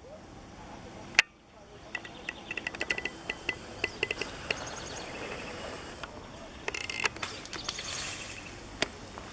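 Outdoor ambience with birds chirping in short, quick notes, broken by a single sharp click about a second in and another near the end.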